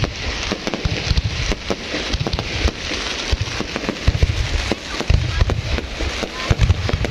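Fireworks display going off in quick succession: a dense, irregular stream of sharp cracks and pops from gold crackling bursts, with deeper booms mixed in.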